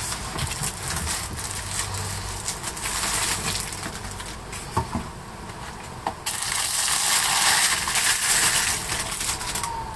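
Thin plastic packaging crinkling and rustling as it is handled and pulled off, in two long bouts, with two small sharp clicks in the quieter stretch between them.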